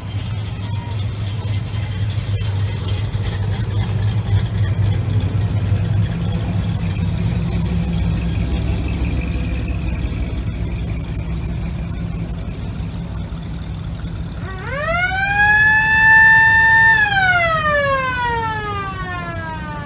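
Classic cars rolling slowly past with a low engine rumble. Near the end a siren winds up quickly, holds a high note for about two seconds, then slowly winds down.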